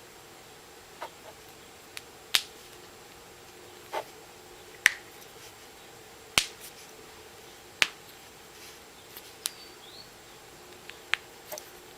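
Neck and back joints cracking: a series of about nine sharp, separate pops, spaced irregularly a second or so apart.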